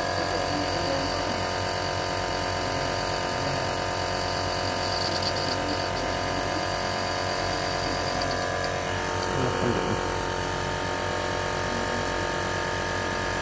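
Nebulizer compressor running with a steady motor hum. A brief wavering sound rises over it about nine and a half seconds in.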